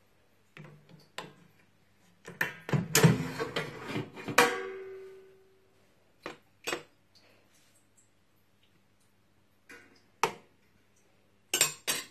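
Clattering and knocking of an air fryer's plastic drawer and basket being handled and pulled out, with a loud burst of clatter that ends in a brief ringing note, then a few single sharp knocks.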